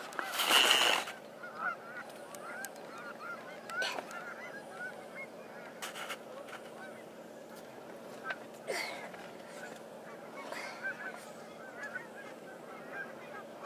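Large flock of geese calling continuously, many short high honks overlapping into a chorus. A brief loud rush of noise at the very start is the loudest thing heard.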